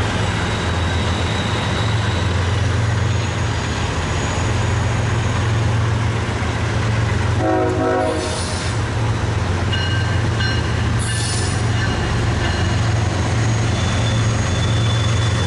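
BNSF diesel locomotive approaching slowly with its engines running in a steady low rumble. About halfway through comes one short toot of its air horn.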